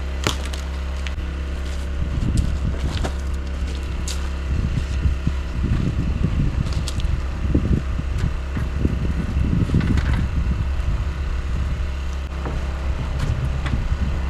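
Knocks, clatter and scraping of solar panels and their packaging being handled and unloaded, over a steady low rumble.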